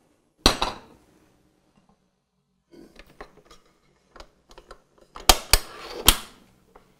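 Clicks and clunks of a stand mixer being handled: the tilt-head lowered and locked and the controls set, with a sharp knock about half a second in and three loud clicks near the end.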